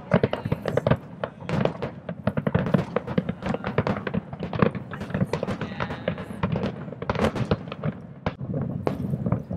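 Aerial fireworks shells bursting in a dense barrage: many sharp bangs and crackles in quick, overlapping succession over a low rumble.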